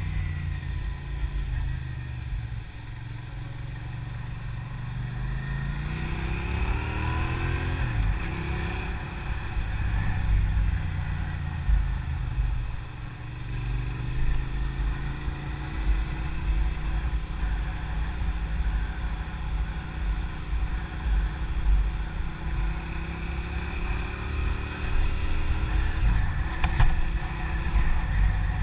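Motor vehicle engine pulling away and accelerating, its pitch rising through each gear and dropping back at the shifts, several times over. Steady road and wind noise runs underneath.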